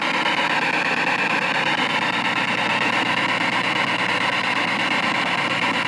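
Spirit box sweeping through radio frequencies, giving out a steady hiss of static through its speaker.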